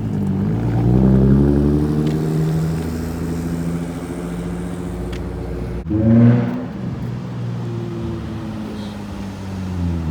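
Nissan 350Z's 3.5-litre V6 engine pulling away and revving up, then easing off. It revs again after a short break about six seconds in.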